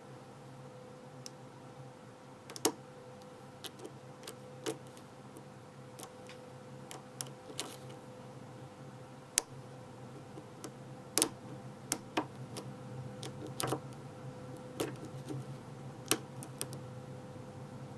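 Lock pick and tension wrench working the pins of a 5-pin pin-tumbler cylinder during single-pin picking: irregular small metallic clicks and ticks, a few of them louder.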